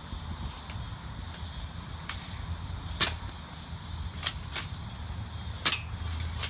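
Airsoft gun shots: about five sharp single snaps fired at irregular intervals, the loudest near the end, over a steady high hiss.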